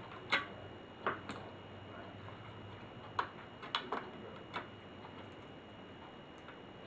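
Laptop parts and tools being handled during disassembly: irregular sharp clicks and taps, about seven of them in the first five seconds, then only a faint background.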